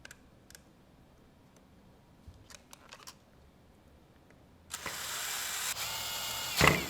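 A few light clicks as screws are set into the squeegee blade clamp. Then, about two-thirds of the way in, a screw is driven in with a power screwdriver that runs steadily for about two seconds and ends in a short, louder sound.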